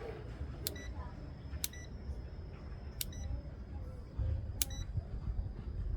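Digital multimeter giving four short, sharp beeps spaced one to one and a half seconds apart, over a steady low background rumble.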